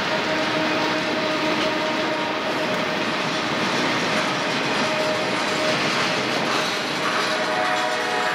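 Freight cars of a slow-moving Norfolk Southern train rolling past: steady wheel-on-rail rumble and clatter, with a steady ringing tone above it that drops out for a while after the middle.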